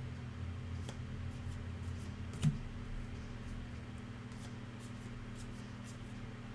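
Trading cards being handled: faint scattered clicks and rustles, with one sharper tap about two and a half seconds in, over a steady low electrical hum.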